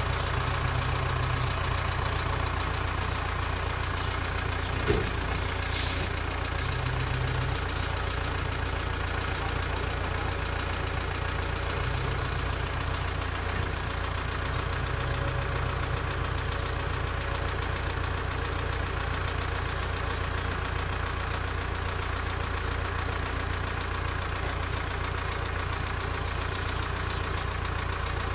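Tractor diesel engine running steadily at idle, with a sharp knock about five seconds in and a short hiss a second later.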